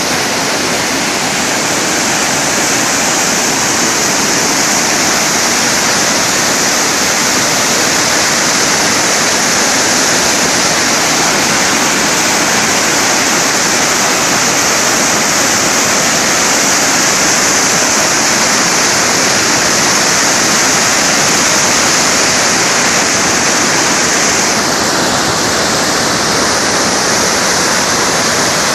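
The Androscoggin River in flood, fast high water rushing loudly and steadily. About 25 seconds in, the rush turns a little lower and duller.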